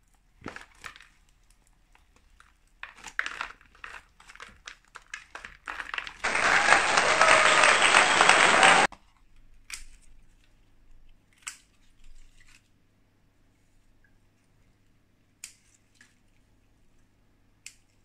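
Clear plastic sheet crinkling and rustling as it is handled, then a loud, steady rush of hiss for about three seconds that starts and stops abruptly. After it, a few single sharp snips of scissors cutting through leafy seedling stems.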